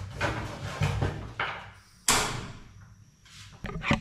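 Knocks and clatters of cookware being handled at the stove, with one sharp bang about two seconds in that rings off briefly.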